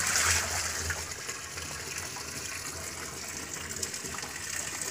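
Hot water streaming and dripping out of a soaked net bag of boiled paddy straw back into a metal drum as the bag is lifted clear. The gush is strongest at the start, then settles into a steady pour.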